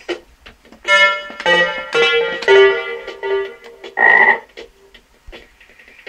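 Electronic music from a Max/MSP patch. Short percussive clicks come first, then from about a second in a run of sustained pitched synth notes, overlapping and stepping in pitch. About four seconds in a short noisy burst sounds, followed by a few scattered clicks.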